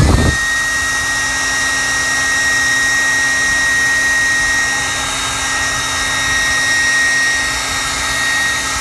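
Handheld hot-air dryer switched on, spinning up with a rising whine, running steadily and loud, then winding down near the end: heat-setting a freshly airbrushed coat of paint on a crankbait so the next color can be layered.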